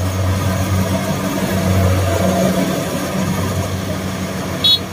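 Rice combine harvester's diesel engine running steadily as the machine works through the paddy, a low, even hum.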